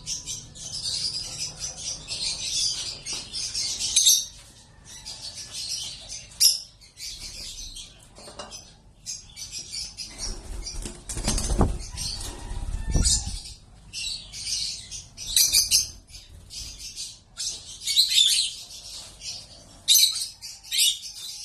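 Lovebirds chattering: a dense, steady run of high, shrill chirps, with two low thumps a little past the middle.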